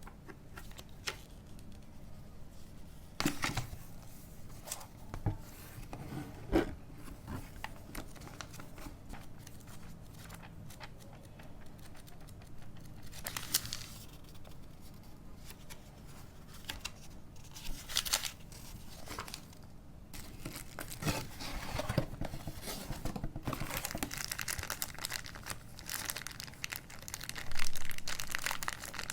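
Camera box packaging being opened and handled: scattered short rustles and knocks, then a longer run of crinkling and tearing of wrapping in the last third, loudest near the end.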